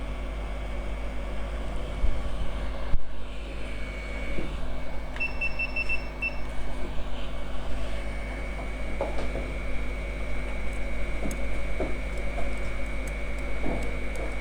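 Hot air rework gun blowing steadily with a fan hum and a thin high whine. About five seconds in, a quick run of about six short electronic beeps sounds, and there is a single sharp click shortly before it.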